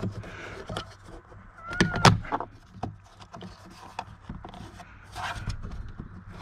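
A plastic tailgate trim panel being pulled off by hand, its push-in clips working loose: scattered light clicks and plastic creaks, a short squeak and a pair of sharp knocks about two seconds in, and a brief scrape near the end.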